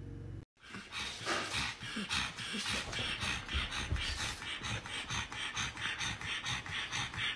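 A pug panting rapidly and rhythmically, about four quick breaths a second.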